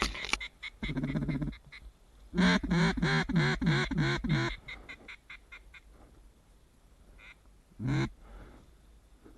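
Duck quacking: a drawn-out quack, then a quick loud run of about eight quacks, and a single quack near the end.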